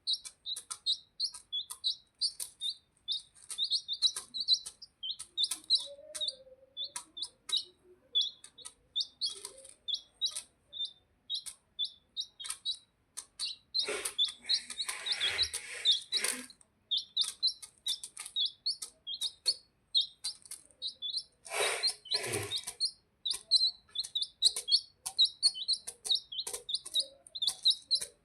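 Birds chirping: a rapid, steady stream of short high-pitched peeps. Two louder, rougher calls break in, a long one about halfway through and a shorter one a few seconds later.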